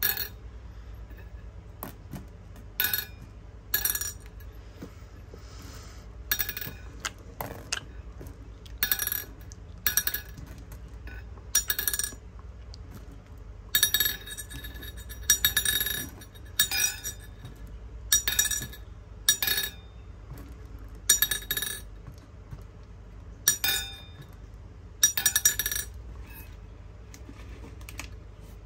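Hard candies clinking against a glass container: sharp glassy clinks with a brief ringing tone, coming irregularly every second or two and sometimes several in quick succession.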